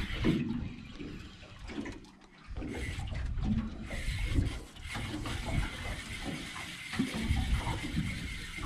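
Water sloshing and lapping against the hull of a small boat, with an uneven low rumble.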